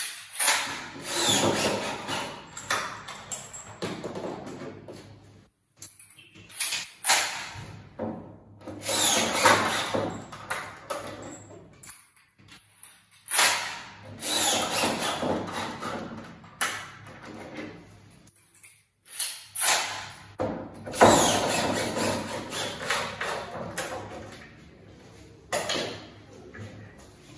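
A power drill-driver running in about half a dozen spells of one to four seconds each, with short pauses between: driving screws during furniture assembly.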